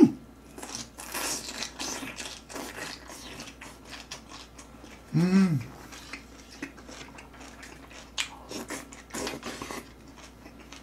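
Close-up eating sounds: slurping noodles from gomtang and wet chewing, with small clicks of a spoon and chopsticks against the metal pot. About five seconds in comes a short hummed "mm" of enjoyment.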